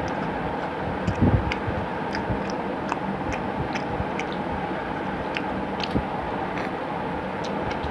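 Eating rice and curry by hand: fingers squeezing and mixing rice on a steel plate, then chewing, heard as scattered small wet clicks and smacks over a steady background hiss, with a low thud a little over a second in.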